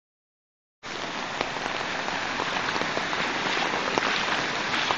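Muddy floodwater rushing past in a steady torrent, starting just under a second in, with faint scattered ticks in the wash.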